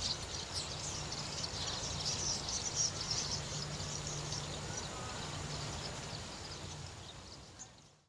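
A large flock of birds calling together, a dense chatter of many short high calls over a steady low hum, fading out over the last couple of seconds.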